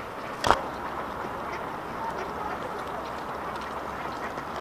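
Feral pigeons and a mallard pecking millet off paving stones: many light, quick taps of bills on stone and grain, with one loud sharp knock about half a second in.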